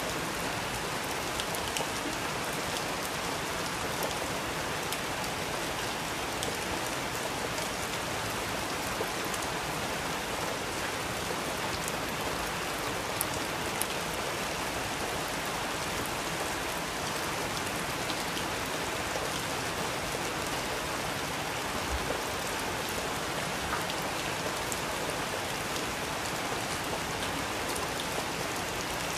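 Steady rain falling: an even hiss with scattered faint ticks of individual drops.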